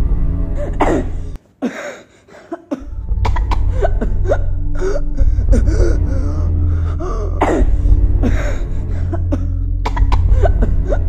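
Wordless vocal sounds, like coughs and gasps, over background music with a steady low bass. The music cuts out for about a second, starting around a second and a half in.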